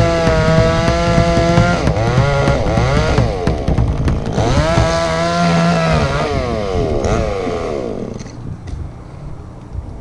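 Stihl two-stroke chainsaw running at high revs. Its pitch dips and climbs back twice, then falls away to idle in the last couple of seconds.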